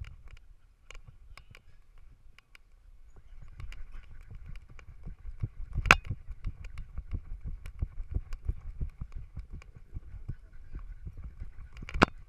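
Quick rhythmic thumps of a miniature schnauzer's running gait, jostling the GoPro strapped to its harness, about four or five to the second, starting a few seconds in. Two sharp knocks stand out, one about halfway through and one near the end.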